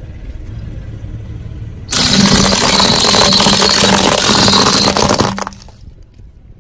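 Car tyre rolling over hollow plastic baby rattle toys, a loud crunching and cracking of the plastic that starts suddenly about two seconds in and stops about five seconds in, over the car's low engine hum.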